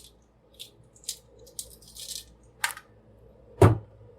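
Plastic toy figure and its parts being handled: a scatter of light clicks and rustles, with a heavier knock near the end.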